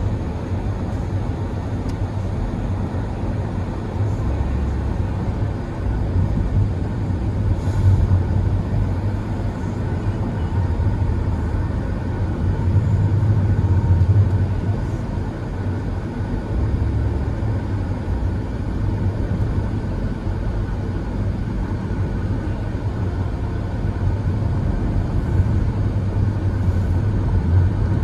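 Road and engine noise of a moving car: a steady low rumble that swells a little a few times.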